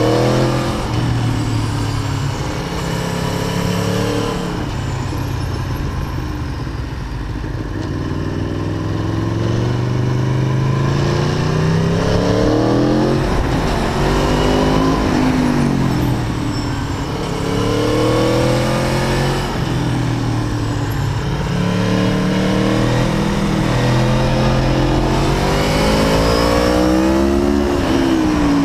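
Aprilia Tuono V4 APRC Factory's V4 engine under way, its note climbing and falling again and again as the bike accelerates and backs off.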